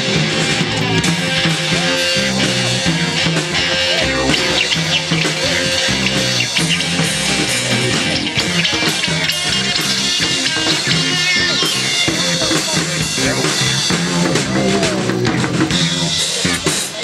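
Live band playing amplified rock music on electric guitars over a drum kit.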